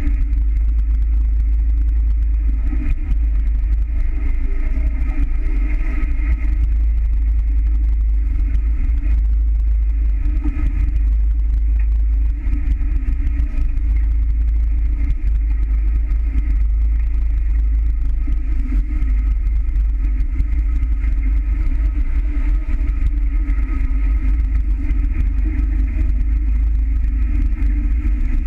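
Steady rumble of wind on the microphone and water rushing along the hull of a catamaran under sail.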